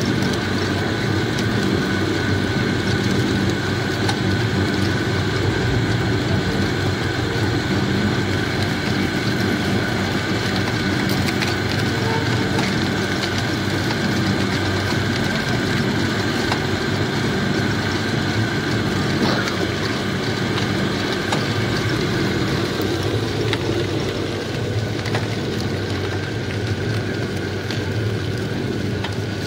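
Power-driven sugarcane crusher running steadily, its drive making a constant mechanical drone with a steady whine as cane is fed between the rollers to press out juice. It gets slightly fainter near the end.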